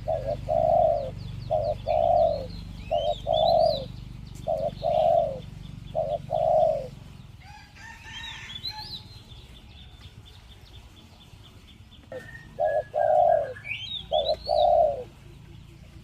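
Spotted dove (a decoy bird) cooing in repeated deep phrases, which the owner calls big-voiced: one run of coos over the first seven seconds and another from about twelve seconds in. Small birds chirp faintly and high above it.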